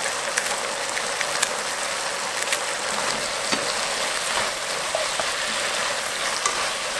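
Pollock skin and chilies sizzling steadily in a bubbling soy-and-gochujang sauce in a nonstick frying pan as they are stir-fried with chopsticks, with a few light clicks of the chopsticks against the pan.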